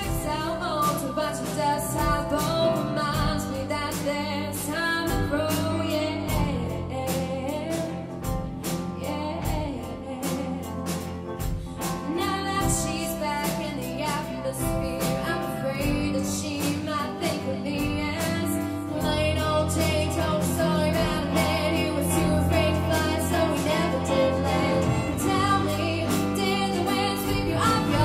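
Live rock band playing: a female lead voice singing over electric guitars and a drum kit keeping a steady beat, with keyboard and cello.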